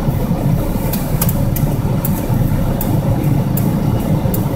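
Car engine and road noise heard from inside the cabin of a manual-transmission car while driving: a steady low rumble with a few faint, scattered clicks.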